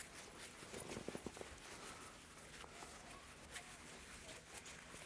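Faint rustling and soft clicks of a ratchet strap's tail being coiled by hand, with a brief cluster of light taps about a second in.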